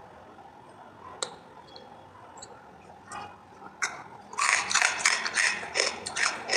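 Dry clay pieces crunching between the teeth, starting about four seconds in as a rapid run of loud, crackly bites after a quiet stretch with a single click.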